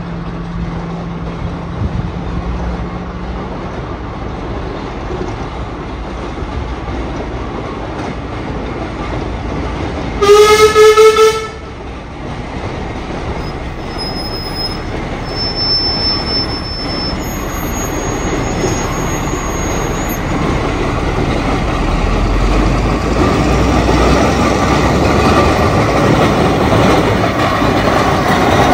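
Steam traction engine running along the road, growing steadily louder as it comes closer, with one short, loud blast of a steam whistle about ten seconds in.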